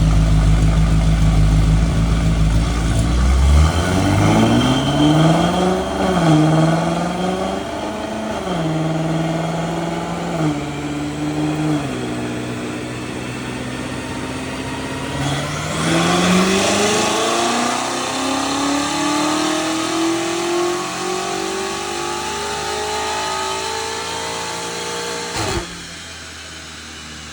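BMW M5 Competition's twin-turbo V8, fitted with front-mount intakes and a titanium Valvetronic exhaust, making a full-throttle pull. The revs climb in several steps, then about 15 s in rise in one long sweep for about ten seconds before cutting off suddenly as the throttle closes. It is running clean, with no misfire, on the new parts before the tune.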